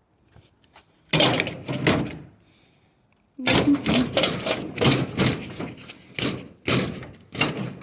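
Scrap being handled: a run of clattering knocks and thuds in two bursts, a short one about a second in and a longer one from about three and a half seconds.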